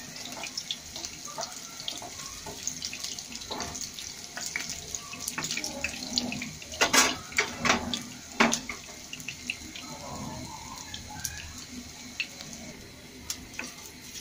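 Beef kebab patties frying in hot oil in a pan: a steady sizzle with frequent small pops and crackles, and a few louder spits from about seven to eight and a half seconds in.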